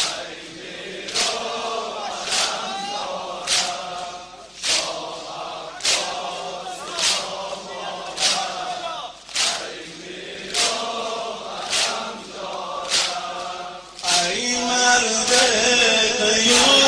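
Shia Muharram mourning chant (noha) with chest-beating (matam): a man's voice chants between unison hand slaps on the chest, one slap a little more often than every second. Near the end it grows louder as a fuller chorus of voices joins in.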